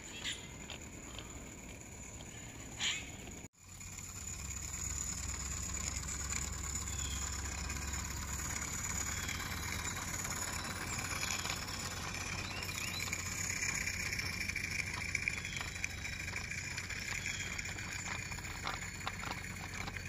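Wet spring outdoor ambience: two crow caws in the first few seconds, then, after a cut, a steady hiss of rain and snow with small birds chirping and a low rumble underneath.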